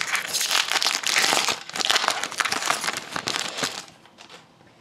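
Trading card pack wrapper being torn open and crinkled: a dense crackling full of small snaps that lasts about three and a half seconds and dies away near the end.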